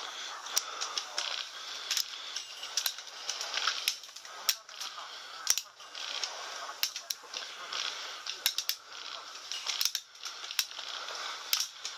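Airsoft guns firing irregular single shots: sharp clicking pops, sometimes a few in quick succession, over a steady background hiss.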